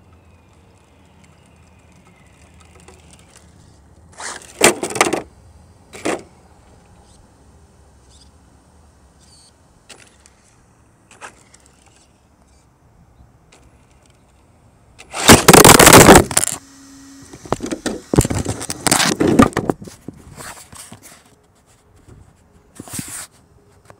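Electric Tamiya TA02 radio-controlled car on asphalt: short loud bursts of motor and tyre noise about four to six seconds in, then the car rams the ground-level camera head-on with a loud crash about fifteen seconds in. Jumbled knocks and rustles from the camera being picked up and handled follow.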